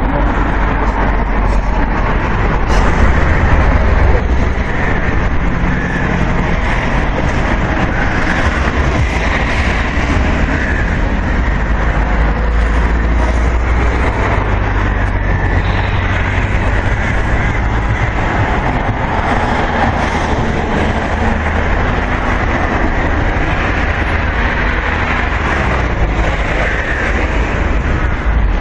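Steady road-traffic noise: vehicle engines and tyres rumbling past without a break, with an engine note dropping in pitch near the end.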